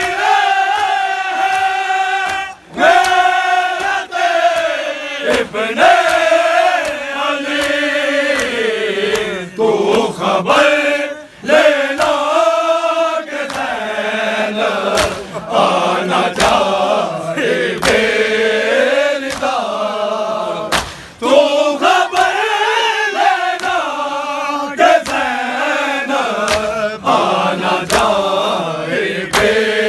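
Group of men chanting a noha, a Shia lament, together in a drawn-out melody, with scattered sharp slaps through it.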